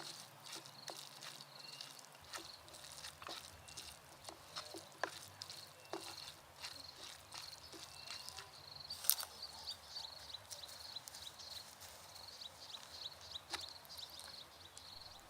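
Faint outdoor ambience: a steady, high-pitched pulsing chirp with scattered soft clicks and ticks.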